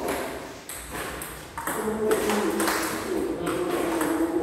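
Table tennis rally: the plastic ball clicks sharply off the paddles and the table, a hit or bounce about every half second.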